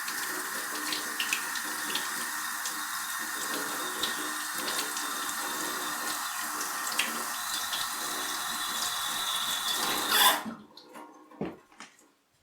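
Kitchen sink tap running while hands are washed under it. The water is shut off abruptly about ten seconds in, followed by a few light knocks.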